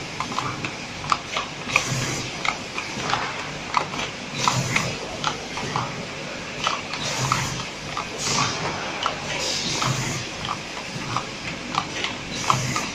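Automatic packaging machine running: a steady clatter of mechanical clicks, with short hissing bursts and a low pulse every couple of seconds as the stations cycle.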